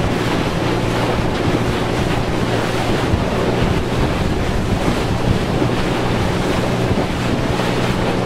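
Tour boat under way: a steady low engine drone mixed with wind buffeting the microphone and water rushing past the hull.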